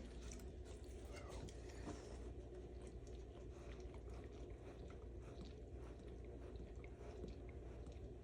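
A Great Dane in first-stage labor licking, heard as faint, irregular wet smacking and clicking over a steady low hum.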